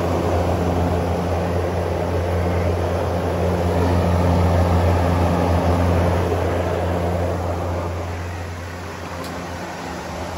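Electric greenhouse exhaust fan running steadily behind a louvered metal shutter vent: a constant motor hum under the rush of moving air, louder around the middle and easing somewhat near the end.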